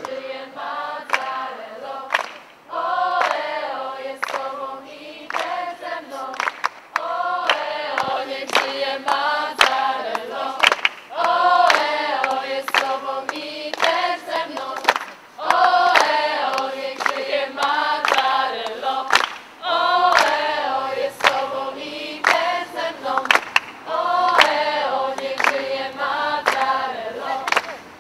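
Music: a choir singing a sustained melody in phrases, with sharp percussive clicks through it.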